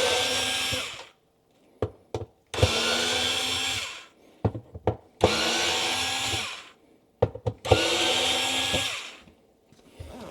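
Vacuum cleaner switched on in four short bursts of about a second and a half each, its motor whine rising as it spins up at each start. Sharp clicks and knocks come between the bursts.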